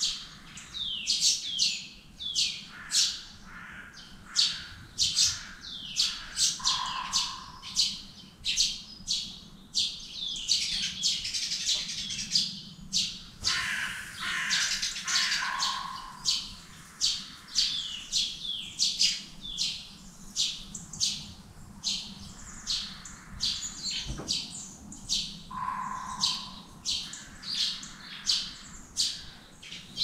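Small birds chirping: many short, sharp calls falling in pitch, several a second and overlapping, with a lower whistled note now and then.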